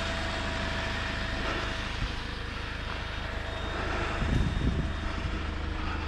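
Electric SUP pump running steadily as it inflates an inflatable paddleboard, a continuous motor drone with a faint steady tone. About four seconds in, a brief low rumble rises over it.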